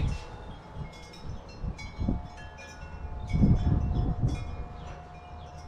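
Scattered, short chime-like ringing tones at several high pitches over a steady low hum, with one steady tone holding from about two seconds in and a brief dull low sound a little past the middle.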